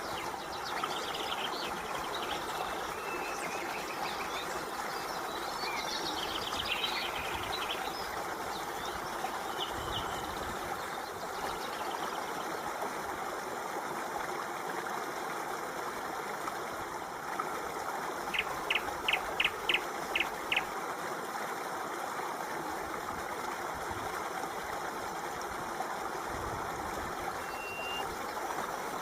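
Stream water flowing steadily, with birds chirping over it in the first few seconds. About two-thirds of the way in, a quick run of seven short, evenly spaced high notes stands out above the water.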